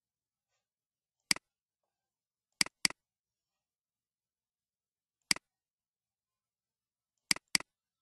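Computer mouse clicks on an otherwise silent track: a single click, a quick double-click, another single click, then another double-click near the end.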